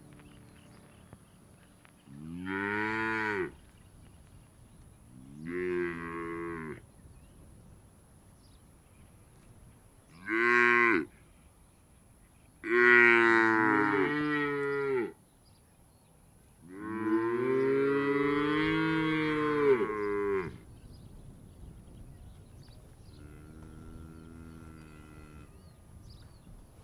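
Cattle mooing: five loud, drawn-out moos, from about a second to nearly four seconds each with pauses between them, then a fainter moo near the end.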